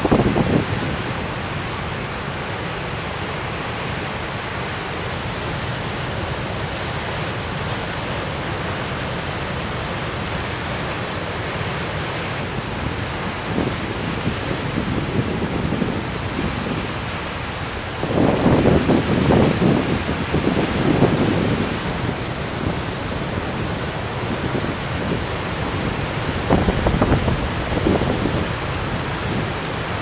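Winter storm waves on Lake Superior breaking, a steady rush of surf and wind. It swells louder in surges a little past halfway and again near the end.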